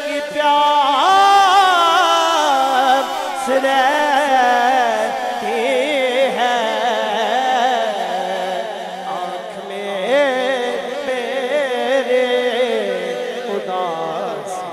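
A man singing a naat into a microphone: a slow, unaccompanied devotional melody with long held notes that waver and slide in pitch.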